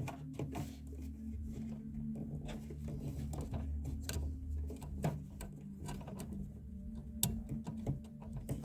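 Scattered light clicks and knocks as the xenon headlight bulb's plug and housing parts are handled and fitted, over a steady low hum.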